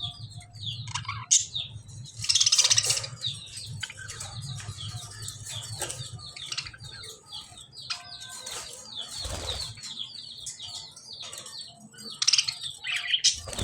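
A group of budgerigars chirping and warbling continuously in quick, overlapping calls. A loud burst of wing flapping comes about two seconds in and again near the end, over a steady low hum.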